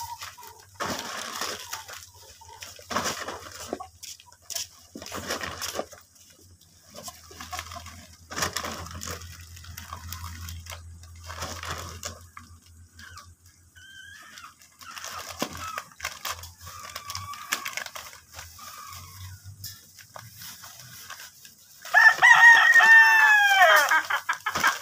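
A rooster crows loudly once near the end. Before it, scattered rustling and clicking of plastic bags and canned goods being handled.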